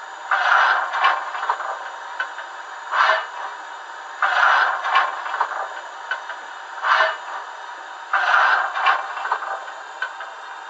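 Fleischmann BR 41 steam locomotive sound decoder's coal-shovelling sound: a shovel scraping into coal, then a shorter clatter of the throw into the firebox, repeating about every four seconds. It plays through the model's small onboard speaker, so it sounds thin with no bass.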